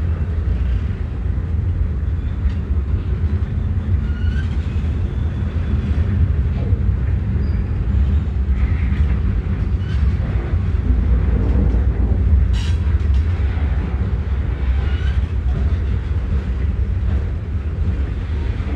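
Freight train rolling past with a steady, heavy low rumble, with a sharp click about halfway through.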